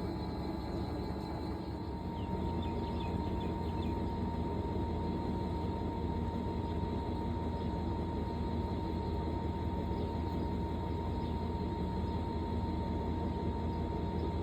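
Fisher & Paykel Pride MW511 top-loading washing machine running steadily, a low hum with a thin whine that comes in about two seconds in.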